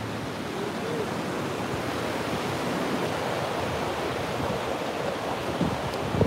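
Ocean surf breaking and washing up the beach as a steady rushing noise, with wind buffeting the microphone in a few short gusts near the end.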